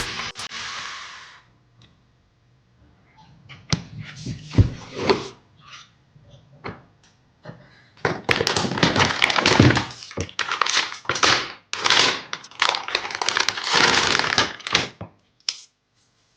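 PC parts and their packaging being handled by hand: irregular rustling and crackling with sharp knocks and thunks, sparse at first and then almost continuous over the second half.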